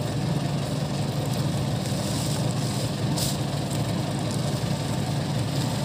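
Fishing boat's engine idling steadily with a low, even drone, while the wet net is hauled in over the side.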